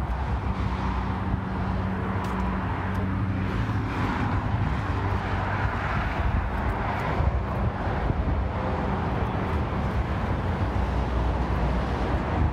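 A vehicle engine running, a steady low hum with a few held low tones.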